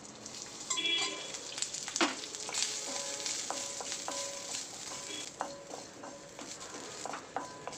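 Fresh coconut pieces sizzling as they fry in a little oil in a kadai. A spatula scrapes and clicks against the pan at irregular moments as they are stirred.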